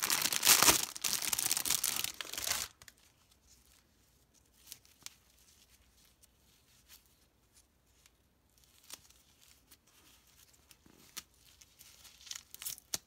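Clear cellophane packaging crinkling and tearing as hands open it, loud for the first two and a half seconds and then stopping abruptly. After that come only faint, scattered rustles of ribbons and paper being handled, with a brief rustle again near the end.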